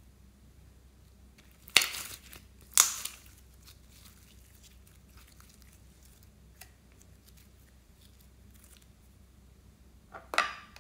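Clear pink slime being stretched and pulled apart by hand: two short tearing sounds about two and three seconds in, and another near the end, with quiet in between.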